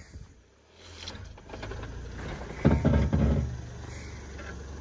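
Car engine running steadily at low pitch, building up about a second in, with a louder surge near the middle.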